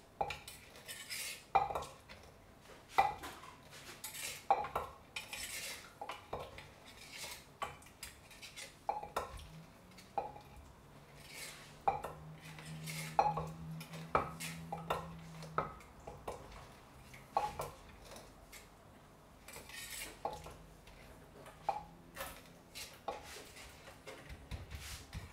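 Pestle pounding papaya-salad ingredients (Thai eggplant, tomato, chili, garlic, lime) in a mortar, a separate knock about every second and a half, with light spoon-and-utensil clatter as the mix is stirred.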